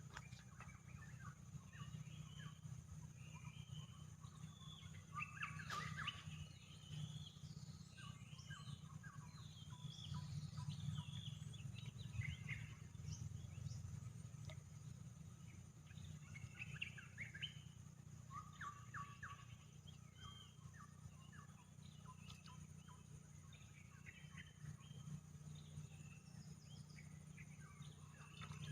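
Birds chirping and calling in many short, quick notes throughout, faint, over a steady low hum and a thin, steady high-pitched whine.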